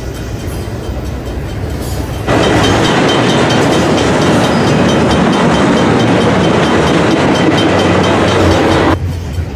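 Double-stack intermodal freight cars rolling past on the rails. About two seconds in, the sound jumps abruptly to a much louder, closer rush of wheels and cars, which drops back just as suddenly near the end.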